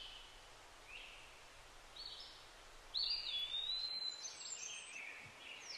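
Faint birds chirping in an outdoor ambience: a few short high calls from about a second in, growing busier about three seconds in, over a low steady hiss.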